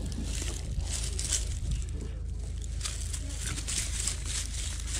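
Footsteps through dry grass: irregular crackling and rustling of the stalks underfoot, over a steady low rumble.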